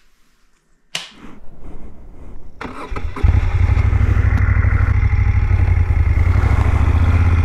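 Moto Guzzi Griso motorcycle's V-twin engine, coming in suddenly about a second in and growing until, about three seconds in, it runs loud and steady with a low, even pulse.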